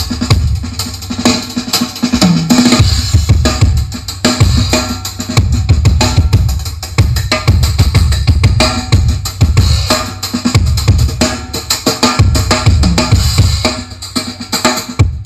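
Drum-heavy music played loud through a large outdoor sound system of SPL Audio subwoofer stacks and line-array speakers. Heavy bass drum beats pulse throughout, with snare and cymbals above them.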